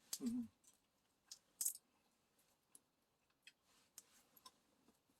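Faint, scattered, irregular clicks and small crackles, with a brief low vocal sound right at the start.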